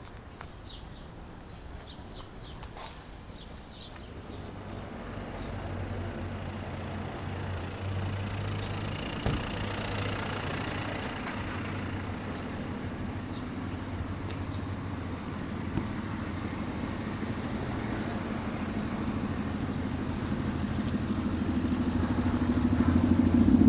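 A vehicle approaching, its low steady hum growing gradually louder and loudest at the end.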